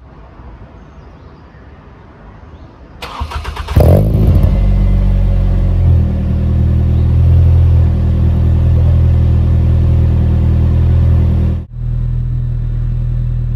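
2005 Ford Fiesta ST's 2.0-litre four-cylinder engine running at a steady idle just after starting. A brief clatter comes about three seconds in, and then the engine sound is much louder for most of the rest.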